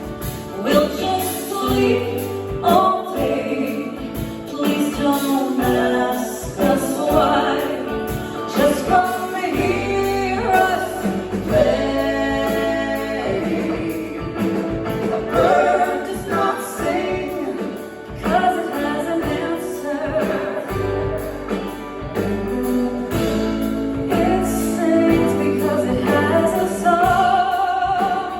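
A band playing a song, with singing over the instruments.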